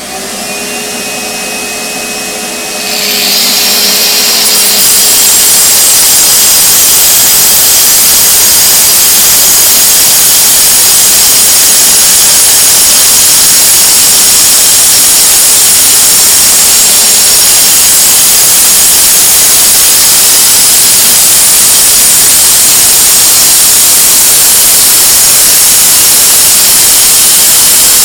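A vacuum starts up with a steady motor whine. About three seconds in, a much louder, even power-tool noise joins it and runs on without a break: concrete cutting into the paving with the vacuum extracting the dust.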